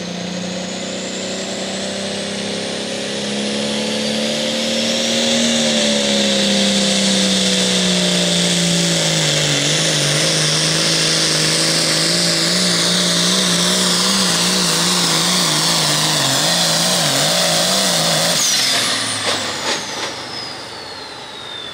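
Limited Pro Stock turbocharged diesel pulling tractor under full throttle during a pull, with a high turbo whine over the engine. Engine speed climbs, then drops as the sled loads it down, then wavers rapidly. About eighteen seconds in the engine cuts off, the whine falls away, and a few sharp clicks follow.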